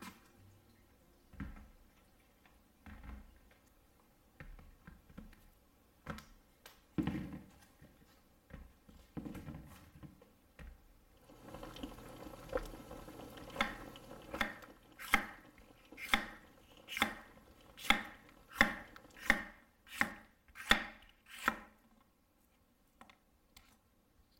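Kitchen-knife cuts through fresh jalapeños onto a wooden cutting board, a steady run of about a dozen crisp strikes roughly one every three-quarters of a second through the second half, stopping shortly before the end. Before them come a few scattered light knocks, then an even bubbling hiss of water heating in a pot that holds glass jars for sterilising.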